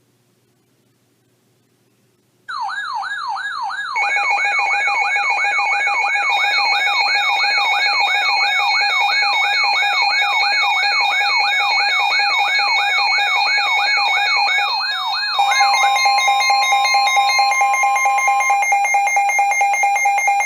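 Weather radio alert tones for a severe thunderstorm warning: after a couple of seconds of silence, a warbling siren tone sweeps up and down about three times a second, and steady alert tones join it a moment later. About fifteen seconds in the warble stops and the steady tones carry on.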